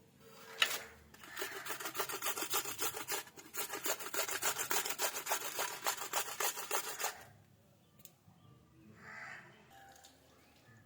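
Rapid, rhythmic rasping strokes, about six a second, keep up for roughly six seconds and then stop; a sharp click comes just before them.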